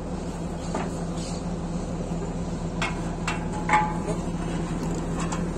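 Engine running steadily with a constant low hum. About three seconds in come three sharp metal clanks, the last and loudest with a brief ring.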